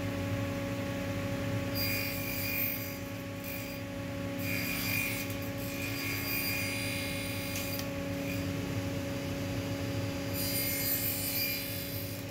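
Table saw running with a steady motor hum while its blade crosscuts dark wooden strips pushed through on a wooden sled. There are three stretches of cutting noise: near the start, a longer one through the middle, and one near the end.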